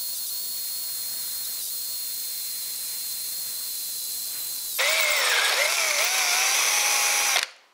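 A small power tool's electric motor running with a steady high whine, louder from about five seconds in with its pitch wavering up and down, then stopping abruptly near the end.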